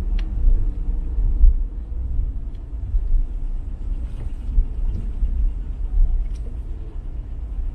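Strong wind buffeting the microphone: a deep, gusty rumble that swells and drops irregularly.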